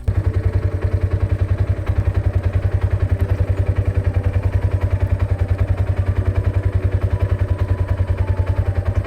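Engine idling steadily, with an even rapid chug of about ten pulses a second; it starts suddenly.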